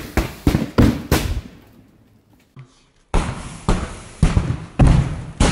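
A run of special-effects pyrotechnic explosions: a sharp bang at the start and four more in quick succession over the first second, dying away. After a lull of about a second, a second run of about five bangs follows, roughly half a second apart.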